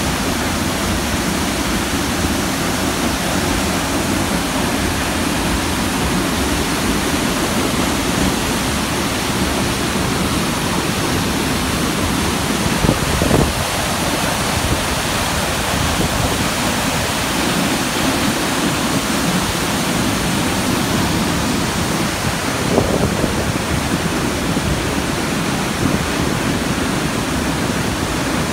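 Haew Narok waterfall: a loud, steady rush of falling water.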